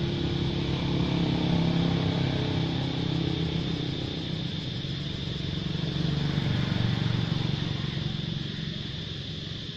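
A motor engine running, with a low hum that swells twice and fades toward the end, over a steady high-pitched buzz.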